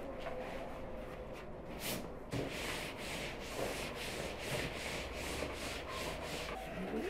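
A cloth rubbed back and forth over a vinyl oilcloth tablecloth, wiping it down. The strokes start a couple of seconds in and run at about three a second.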